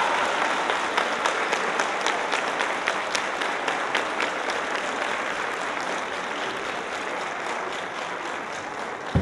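An audience of schoolgirls applauding, with sharp individual claps standing out in the first few seconds, then the clapping slowly dies down.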